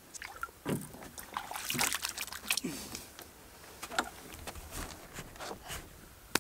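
Water splashing and sloshing against the side of a skiff, with scattered knocks and clicks, as a snook is lowered into the water and released.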